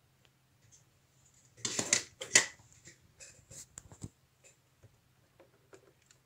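Hands handling the LEGO plastic parts and pneumatic tubing. There is a loud rustling scrape about two seconds in, then scattered light plastic clicks.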